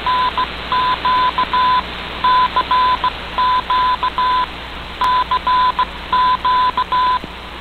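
A Morse code call sent as a single beeping tone, keyed in short and long elements, received off a shortwave AM broadcast through a communications receiver. The keying is heard over a steady background of shortwave static.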